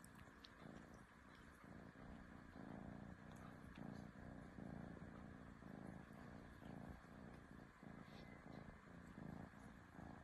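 A grey kitten purring quietly, the purr pulsing in steady segments a little under twice a second.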